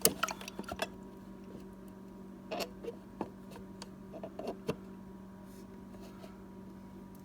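Scattered light clicks and taps, several in the first second and another cluster a few seconds in, over a steady low hum.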